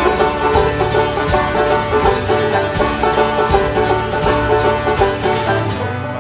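Five-string resonator banjo played at a driving pace, strummed and picked with finger picks in a dense, even run of notes.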